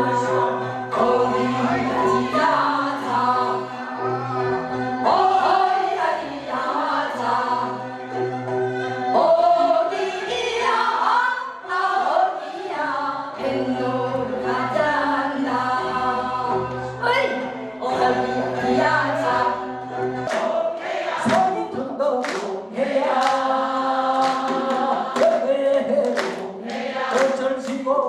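Several voices singing a Korean traditional gugak song together with instrumental accompaniment. After about twenty seconds, sharp plucked notes come through between the sung phrases.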